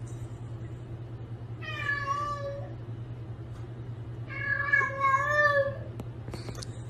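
Domestic cat meowing twice, two long drawn-out meows with a wavering pitch, the second one longer, over a steady low hum.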